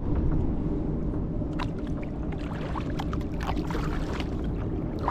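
Wind rumbling on the microphone while choppy waves slap and splash against a kayak's hull.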